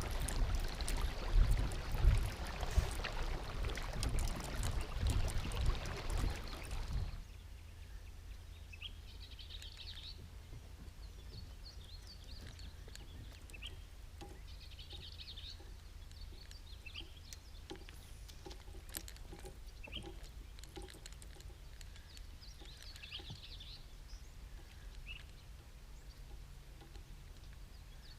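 Loud, uneven rushing noise for about seven seconds, then it cuts off abruptly. Small birds then chirp now and then over a faint steady low hum.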